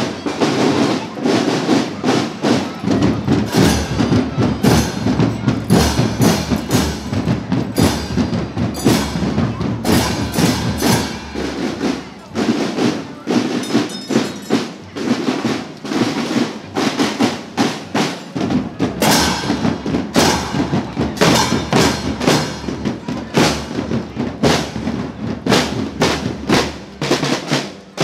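School marching band's percussion playing a steady marching beat: drums struck with sticks in a fast run of strokes, with triangles among the instruments.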